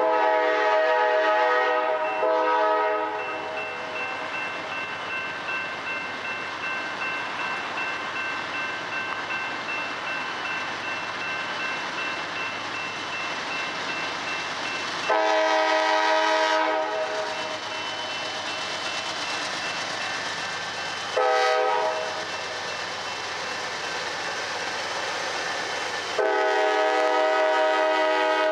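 Multi-chime air horn of a Norfolk Southern freight train's lead locomotive, a GE Dash 8-40CW, sounding long, long, short, long: the grade-crossing signal. Between the blasts the approaching diesel freight rumbles steadily.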